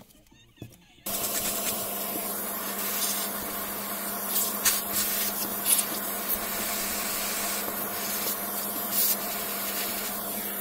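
Small vacuum cleaner switches on about a second in and runs steadily with a hum as its nozzle sucks dust and grit from the stripped-down breaker's parts, with a few sharp clicks of debris or the nozzle against the parts.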